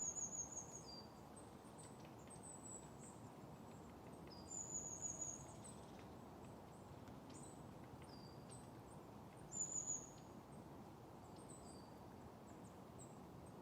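A small songbird singing a short, very high-pitched descending phrase about every five seconds, with other faint high chirps between, over a faint steady outdoor hiss.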